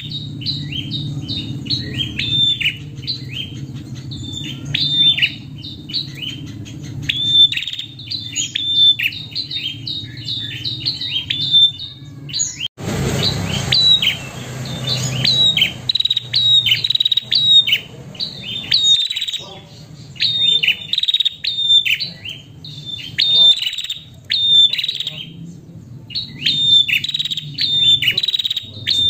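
Female prenjak calling: fast runs of sharp, high chirps, several a second, in phrases of a few seconds with short gaps. It is the kind of female call used to stir males into calling. A steady low hum runs underneath, and a brief burst of noise cuts in about thirteen seconds in.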